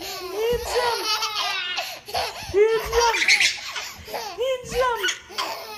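Baby laughing: a run of short, high-pitched laughs, each one rising and falling in pitch.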